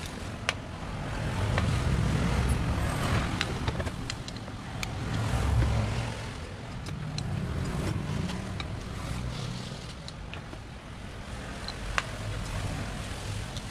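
Sharp metallic clicks and taps of hand tools (screwdriver and wrench) working on an outboard motor's powerhead as it is unbolted. Under them runs a low rumble that swells and fades several times.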